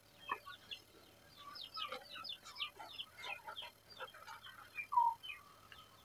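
Village chickens (ayam kampung) calling in the background: many short, high chirps overlapping, with one louder, lower falling call about five seconds in.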